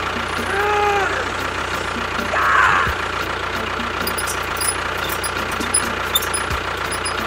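Tractor engine running steadily. A short tone rises and falls about half a second in, and a brief rush of noise comes about two and a half seconds in.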